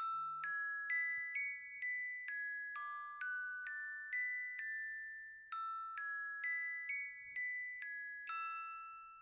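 Countdown timer's alarm going off as the timer reaches zero: a chime melody of struck bell-like notes, about two a second, in two phrases with a brief pause between them, the last note ringing out.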